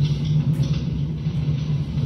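A steady, loud low rumbling drone with a faint hiss above it.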